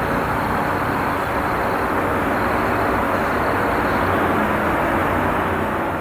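Steady city traffic noise: a continuous, even wash of vehicle sound with no single event standing out.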